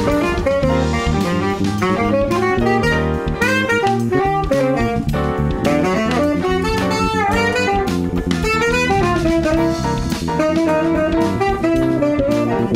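Jazz-funk big band playing, with saxophone to the fore over electric guitar, bass and drum kit, and trumpet and trombone in the ensemble. The melody lines bend and slide in pitch.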